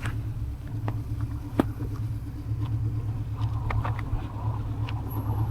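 Steady low hum and running noise of a Jorvik JMT6 electric tricycle being ridden, with scattered sharp clicks and rattles from the trike, one louder about a second and a half in.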